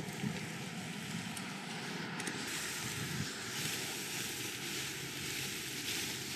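A steady, even rushing noise with no distinct strokes or tones.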